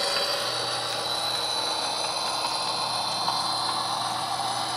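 HO-scale model diesel locomotive running: a steady mechanical drone with a high, even whine and a low hum.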